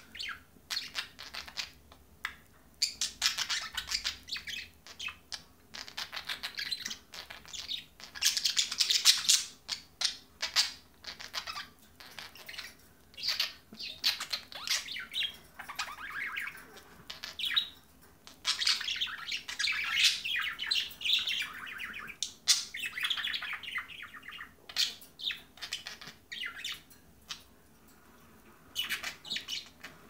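Pet budgerigars warbling and chirping in rapid, chattering bursts with short pauses.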